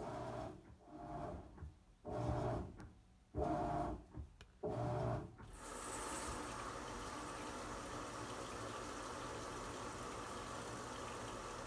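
A few short, choppy bursts of a low hum, then from about five seconds in, water running steadily.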